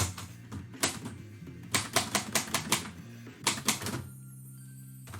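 Typewriter keystrokes in short irregular runs: a single strike, then clusters of several quick strikes, stopping about four seconds in.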